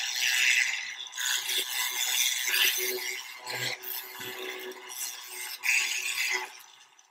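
Handheld mini rotary tool running, its bit rubbing and rattling against a small part, with a steady motor whine under an uneven scraping noise; it shuts off about six and a half seconds in.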